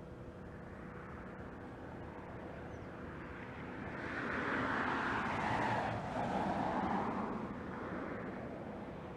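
A car driving past, its tyre and engine noise swelling up, peaking midway with a drop in pitch as it passes, then fading away, over a steady low hum.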